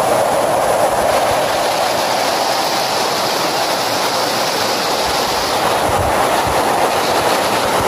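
Water from Chapel Falls rushing fast in a sheet over a flat rock ledge: a steady, loud rush.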